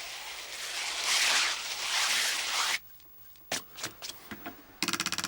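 Skis-on-snow swishing sound effect: a loud hissing swish that swells twice and cuts off suddenly just under three seconds in. A few separate clicks follow, then a fast, even run of clicking near the end.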